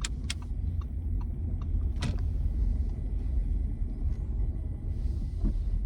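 Low, steady rumble inside a moving car's cabin, engine and tyre noise at low speed, with a few sharp clicks in the first couple of seconds.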